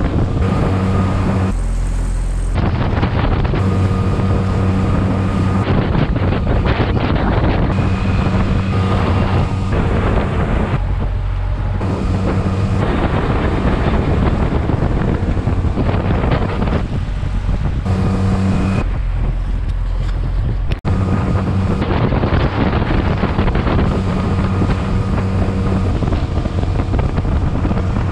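Antique wooden motorboat under way, its engine running at a steady note beneath heavy wind buffeting on the microphone and the rush of spray along the hull. The engine tone drops out under the wind and comes back several times.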